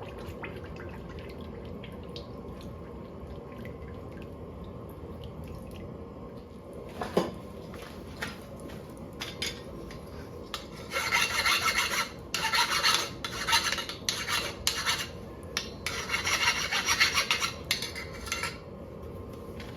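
A file scraped in a series of quick strokes across the freshly quenched spring-steel hot-cut tool, starting about eleven seconds in. It bites rather than skating, a sign that the steel is not fully hard.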